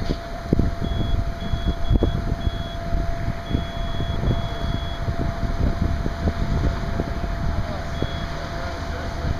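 Low rumbling noise with scattered knocks, under a steady faint hum. Short high-pitched electronic beeps sound several times in the first half, two longer ones follow, and one more comes near the end.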